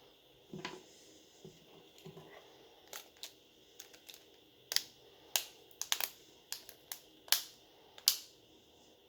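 Irregular sharp clicks and taps of tools and small smartphone parts being handled and pressed together during reassembly of an Oppo Reno 5 Lite. There are a few soft knocks at first, then a dozen or so crisp clicks, the loudest near the end.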